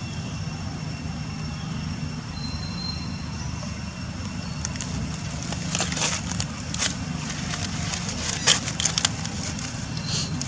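A steady low rumble, with a run of sharp crackles and snaps through the second half; the loudest comes about two-thirds of the way through.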